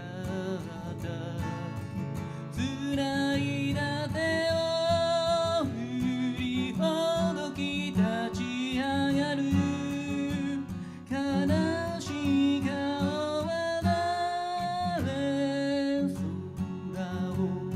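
A man singing with his own strummed acoustic guitar in a live solo performance, holding several long sung notes.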